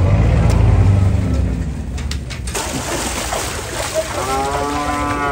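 A low rumble in the first two seconds, then about four seconds in a cow gives one long moo.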